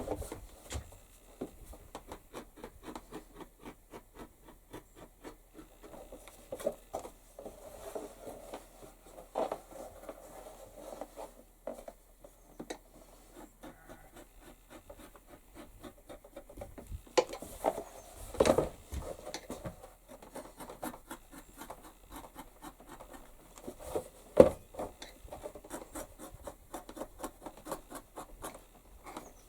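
A No. 4 leather edge beveler shaving along the edges of thick leather: a long run of fast, light scraping strokes. A few louder knocks come about two-thirds of the way in and again near the end.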